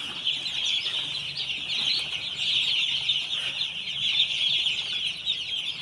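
A flock of two-day-old broiler chicks peeping nonstop, many high-pitched calls overlapping into one dense chorus.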